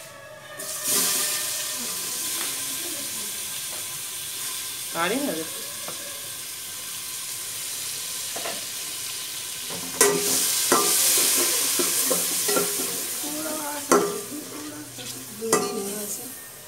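Chopped tomatoes dropped into hot oil and spices in an aluminium pot, sizzling steadily as they are stirred with a slotted metal spoon. The spoon clacks sharply against the pot a couple of times in the second half.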